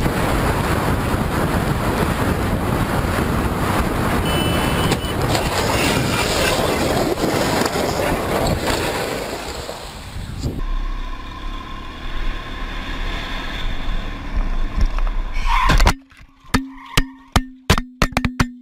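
Steady rushing of wind and water spray on a motorcycle-mounted camera riding through heavy rain. About sixteen seconds in the sound cuts to a rapid series of sharp knocks and clatters.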